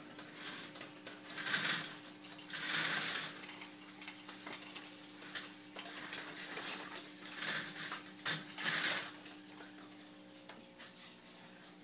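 Steady low hum of aquarium equipment, broken by four short rushes of noise and scattered clicks and knocks.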